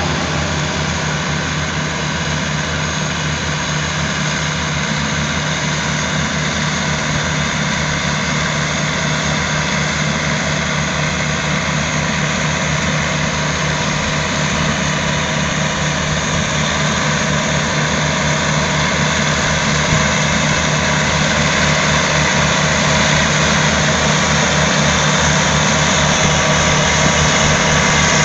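Tractor diesel engine running steadily as it pulls a sand slitter through fairway turf, slowly growing louder as the tractor approaches.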